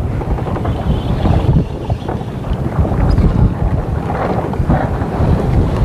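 Wind buffeting the microphone: a loud, uneven low rumble that flutters throughout.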